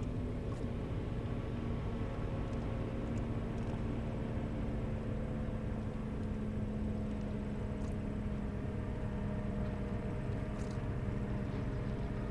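Boat engine running steadily out on the water, a low drone whose pitch wavers slightly. A few faint, short, high chirps sound now and then.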